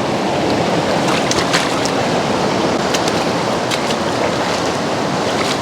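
Fast mountain river running high over rapids: a steady rush of water, with a few sharp splashes.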